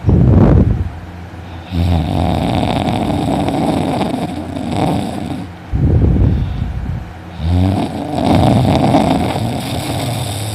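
A man snoring loudly in his sleep: a short burst at the start, then two long snores of a few seconds each, with a brief loud breath between them.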